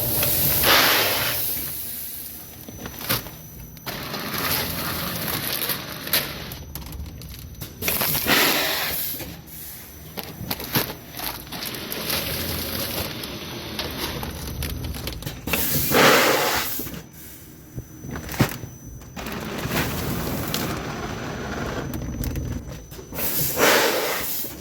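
Automatic two-weigher pulse packaging machine running. Scattered clicks and knocks come between loud rushing bursts that recur about every eight seconds, four times.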